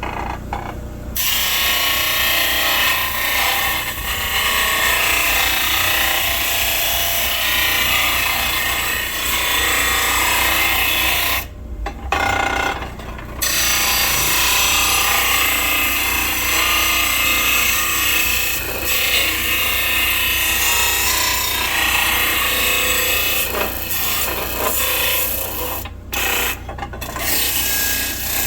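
WEN bench sander running with a workpiece pressed against it: a loud, steady grinding rasp over the motor's low hum, pausing briefly about midway and again near the end as the piece is lifted off. The motor holds its speed under the pressure.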